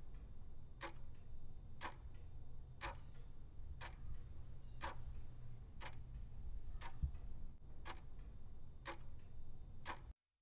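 Countdown-timer clock ticking, one tick a second, about ten ticks over a faint low hum, stopping suddenly near the end.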